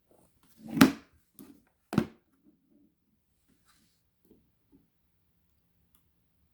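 Handling knocks on a workbench: a sharp knock about a second in, a second one about two seconds in, then a few faint taps.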